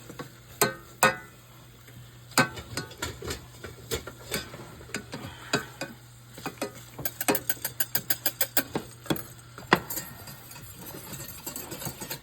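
A utensil stirring and scraping in a pan of gravy, clinking against the pan again and again, with a quick run of taps in the middle; it is being stirred so it doesn't brown too much.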